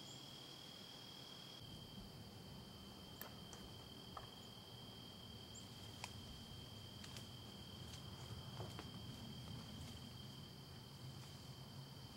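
Faint, steady high-pitched trilling of insects, with a few soft clicks and snaps scattered through it.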